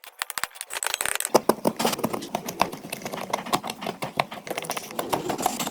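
Rapid, irregular clicking and tapping, getting busier about a second in, from hand work on wood.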